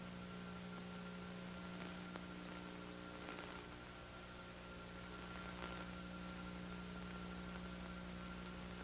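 Steady electrical hum with a faint hiss underneath: the background noise of an old recording's soundtrack.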